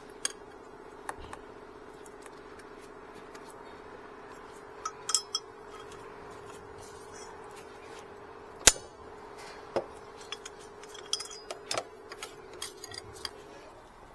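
Metal hand tools clinking and clicking against each other and the vehicle as radiator bolts are worked on with a 12 mm socket. There are scattered sharp clinks, the loudest about two-thirds of the way through, over a steady hum that stops shortly before the end.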